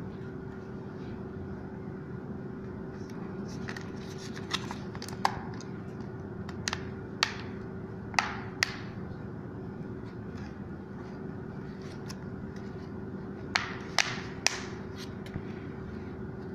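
Plastic back cover of an Acer 8-inch tablet being pressed on by hand, its snap-fit clips latching with sharp clicks: about six over four seconds, then a pause and three or four more. A steady low hum runs underneath.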